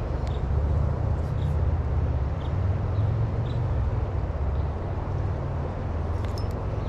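A steady low outdoor rumble, with faint light ticks about once a second as a spinning reel is cranked to retrieve a lure.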